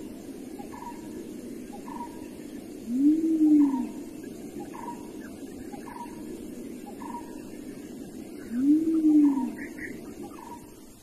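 Young wild elephant being hauled on ropes, calling out twice, each call under a second long and rising then falling in pitch. A run of short high chirps repeats steadily behind it.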